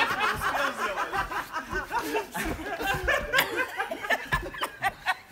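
Several people laughing and chuckling, with snatches of talk and a few short knocks.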